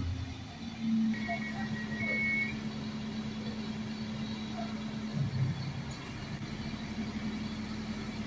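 KD SA135 diesel railcar running with a steady low engine hum at a standstill, its note dropping lower about five seconds in. Two short high beeps sound between one and two and a half seconds in.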